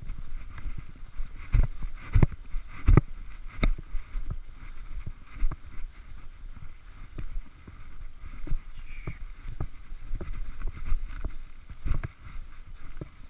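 Footsteps through snow heard on a body-worn camera: uneven thumps about once a second over a steady hiss.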